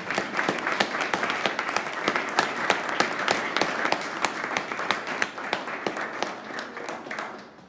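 A small audience applauding, the clapping dying away near the end.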